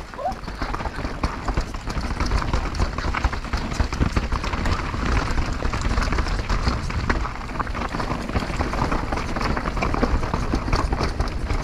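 Mountain bike riding fast down a rough, rocky natural trail: tyres on dirt and stones, with constant rattling and knocking from the bike, over a steady rumble of wind on the microphone.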